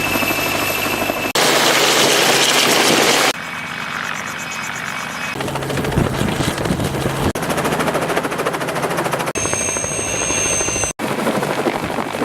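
Helicopter rotor and engine noise in a series of short clips joined by abrupt cuts, each with a different mix. One stretch, about a second and a half in, is much louder and noisier than the rest.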